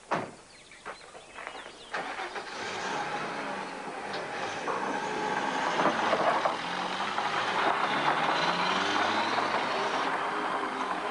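A vehicle door slams shut, then an ambulance van's engine starts and the van drives away, its engine sound rising and falling.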